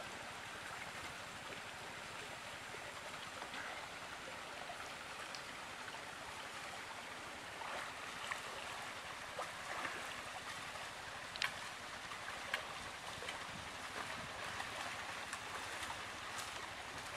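Steady rush of flowing water, with a few faint clicks and knocks scattered through it.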